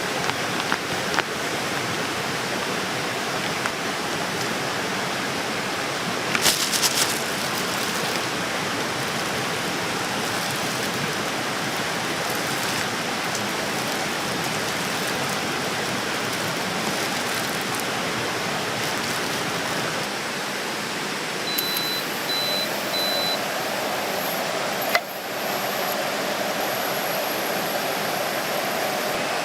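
Steady rain falling, an even hiss of drops. Three short high beeps sound about two-thirds of the way through, and a single sharp knock follows shortly after.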